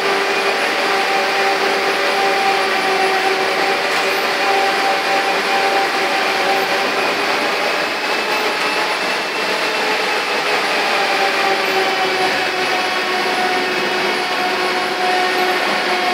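Steel pipe mill machinery running steadily: a constant drone with several steady hum tones, one high tone drifting slightly up and back down in the middle.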